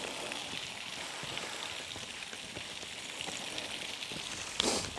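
Steady low hiss with a light patter of water drops, and a short breathy rustle near the end.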